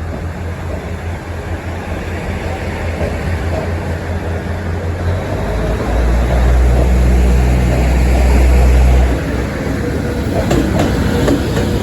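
JR Freight EH500 electric locomotive arriving and passing, getting louder. A deep hum is strongest from about six to nine seconds in, then wheels click over rail joints near the end.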